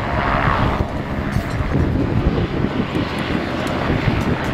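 Helicopter engine and rotor running, a steady low rumble with an uneven pulsing, plus a higher hiss that fades out about a second in.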